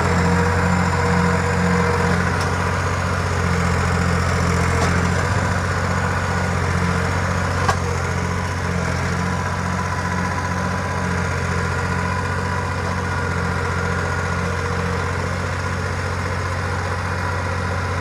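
Farm tractor engine running steadily with an even low drone and a pulsing beat, with a few faint clicks.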